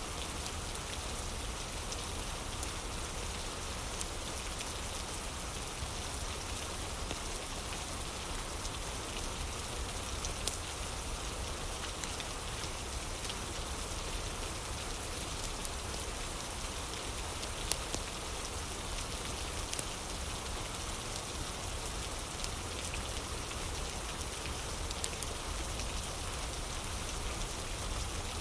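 Steady rain falling, an even hiss, with scattered sharp ticks through it; a few are louder, about ten seconds in and again near eighteen and twenty seconds.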